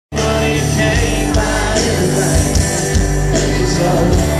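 Live country band playing loudly through a concert sound system, with a steady drum beat, starting abruptly.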